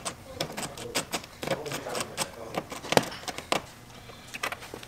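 Irregular light clicks and taps of hands handling small parts on a car's rear body panel, with the loudest knock about three seconds in.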